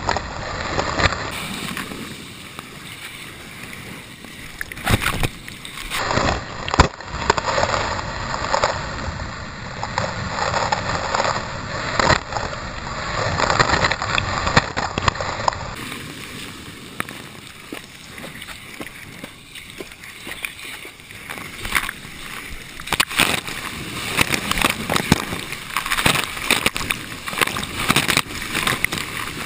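Breaking wave rushing around a waterproof action camera, with spray and splashes striking the housing and water gurgling over it. The sound changes abruptly a few times.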